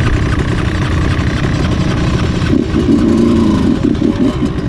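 Off-road engines idling close by: a dirt bike and a Yamaha Raptor 700 quad. In the second half a wavering, pitched sound rides over them.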